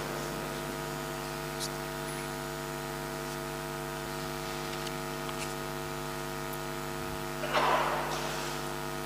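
Steady electrical mains hum from the amplified sound system, between the call to prayer and the sermon. A short burst of noise comes about seven and a half seconds in.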